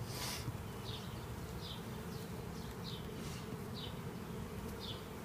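Honey bees buzzing in a steady hum as they fly around an open hive box and their package. A short high chirp repeats over it about once a second, and there is a brief rustle just after the start.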